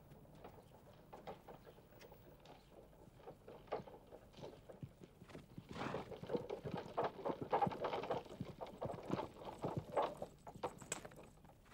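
Hoofbeats of several horses walking on a snowy road, ridden and drawing a wagon. The irregular clip-clop grows louder about halfway through and fades near the end as they pass.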